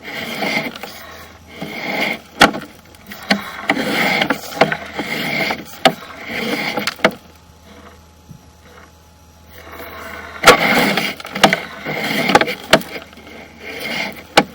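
Sewer inspection camera's push cable being pulled back by hand through a pipe cleanout: repeated scraping strokes about a second apart with sharp clicks among them, pausing about halfway through and then starting again.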